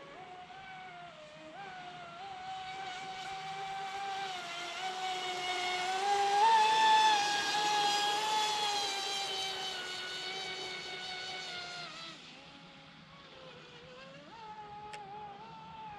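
Pro Boat Impulse 32 radio-controlled boat's brushless electric motor whining at speed. The whine grows louder to a peak about halfway through, then fades. Its pitch drops about three-quarters of the way in as the throttle comes back, then climbs again near the end.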